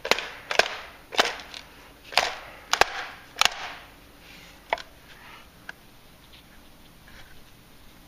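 Sharp knocks on a failing handheld LED work light, struck to get it to light: about six hard knocks in the first three and a half seconds, then a single knock and a faint tap, then quiet.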